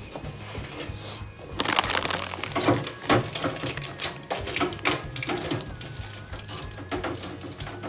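Irregular clicks, clatter and knocks of hard household items being handled, over background music.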